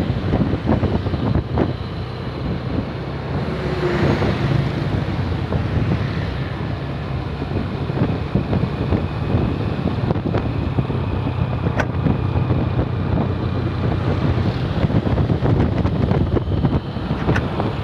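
Bus engine running steadily, with wind buffeting the microphone.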